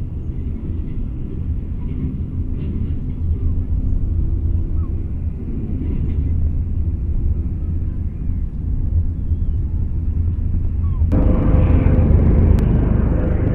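Low rumble of an approaching helicopter, slowly growing louder. Near the end it turns suddenly louder and fuller, with a steady hum over it. A few faint bird calls sound early on.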